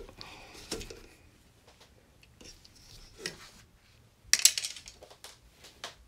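A plastic embroidery hoop being taken off a stitched piece: fabric and stabilizer rustling as the work is handled, then a short burst of sharp plastic clicks and clatter about four seconds in, the loudest part, as the hoop comes free.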